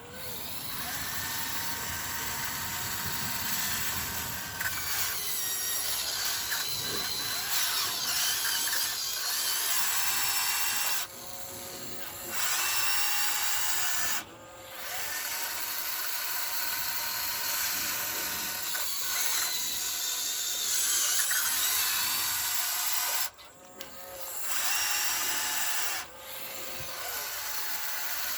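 Small electric motors of a Huina 1599 RC excavator whining as it is worked, the pitch gliding up and down with the load. It stops and starts again briefly several times.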